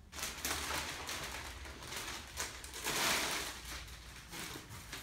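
Clear plastic packaging rustling and crinkling as a padded kayak seat is pulled out of its wrapping, loudest about three seconds in.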